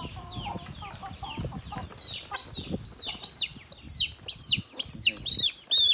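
A chick peeping loudly and insistently, about two sharp rising-and-falling peeps a second, starting about two seconds in. Before that, softer chirps and clucking from chickens.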